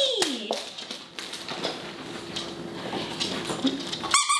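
Light taps and knocks of items being handled in an open suitcase on a wooden floor. Near the end comes a short, high, steady squeak.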